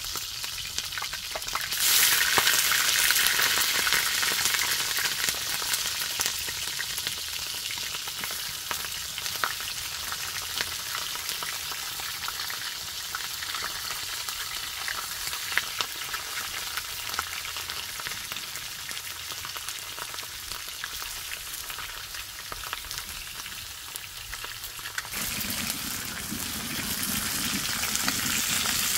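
Food sizzling and crackling as it fries in hot oil, a steady hiss peppered with pops that grows louder about two seconds in. A deeper sound joins in for the last few seconds.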